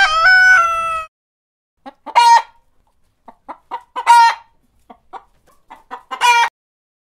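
Chickens: a rooster's crow ends about a second in, then a hen clucks, with short clucks between three louder calls about two seconds apart.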